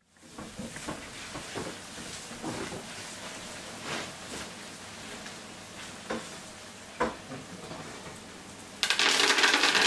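Food packets and plastic bags being handled on a table: soft rustling with a few light knocks. Near the end a sudden, much louder, steady rustling noise starts close to the microphone.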